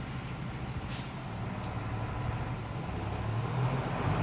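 Steady hiss of heavy rain falling on the street, with a truck's engine approaching below and growing louder toward the end as it draws near.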